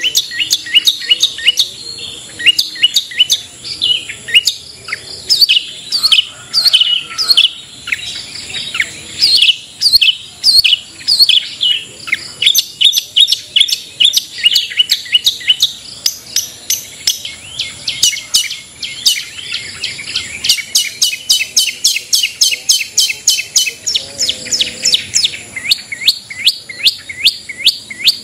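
Long-tailed shrike (cendet) singing a fast, unbroken run of sharp, high chirps, several a second, packed more densely for a few seconds past the middle.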